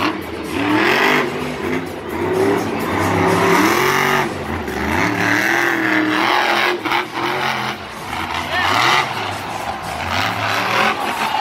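Monster truck's supercharged V8 engine revving up and down again and again as the truck drives and spins on the dirt track.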